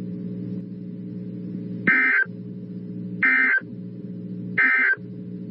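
Emergency Alert System end-of-message signal: three short bursts of screechy digital data tones, a bit over a second apart, closing the tornado warning. Under them runs a steady low hum that cuts out beneath each burst.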